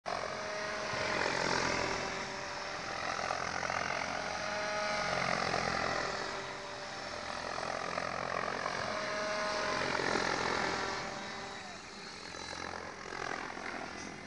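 Compass 7HV 700-size electric RC helicopter flying, its rotor buzz and motor whine at a 1200 rpm head speed. The whine bends up and down in pitch, and the sound swells and fades about three times as the helicopter passes and manoeuvres.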